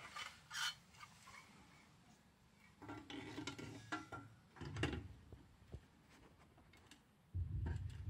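Metal heating test tool on a pole being raised and fitted over a differential spot-type heat detector: scattered clicks, then a run of clattering and scraping of metal against the detector and its wire guard. A low rumble starts near the end.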